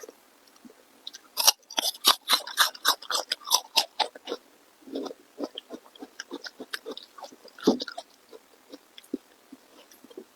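Close-miked chewing of food: a quick run of loud, crunchy bites for about three seconds, then softer, wetter chewing.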